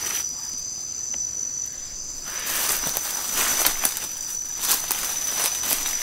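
Night insects trilling in a steady, continuous high tone. From about two seconds in, footsteps crunch and brush rustles as people push through dry undergrowth and leaf litter.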